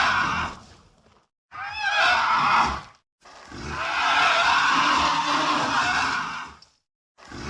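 Stock monster roars from the Sound Ideas library, used as a creature's voice, with dead silence between them. One roar fades out just after the start, a short screeching one comes about a second and a half in, a long one of about three seconds follows, and another begins near the end.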